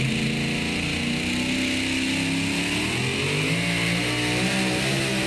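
Super Mod two-wheel-drive pulling truck's engine revving up as the truck launches and starts pulling the weight-transfer sled, its pitch climbing steadily and rising higher about three seconds in.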